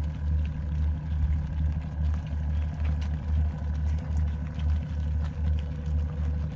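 An engine idling: a steady low rumble that pulses about one and a half times a second, with a faint steady whine over it.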